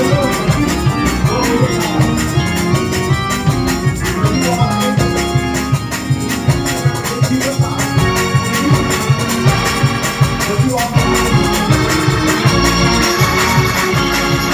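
Two-manual electric organ played in a fast gospel praise break: full sustained chords over a moving bass line, driven by a quick, steady pulse.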